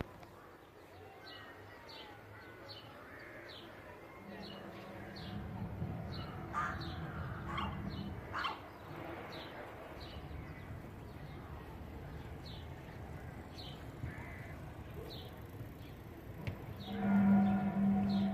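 Low, steady, horn-like drone, the so-called 'sky trumpet' sound. It comes in about four seconds in, holds for several seconds, and returns louder near the end. Birds chirp over it again and again.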